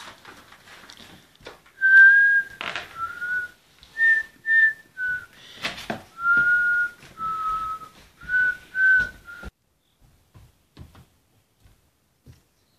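A person whistling a slow tune of about ten notes, some held and some short, with a few knocks in between. The whistling stops about three-quarters of the way through.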